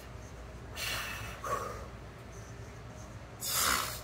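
A man taking two heavy, hissing breaths while straining to hold a flexing pose, one about a second in and one near the end.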